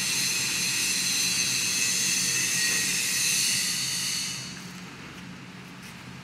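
Workshop machinery running with a steady high-pitched hissing whine over a low hum. It drops away sharply a little over four seconds in, leaving a quieter background hum.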